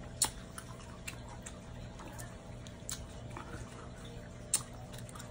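Scattered sharp, wet clicks and smacks from cooked shrimp being peeled by hand and eaten, about seven in all at uneven intervals, over a faint steady hum.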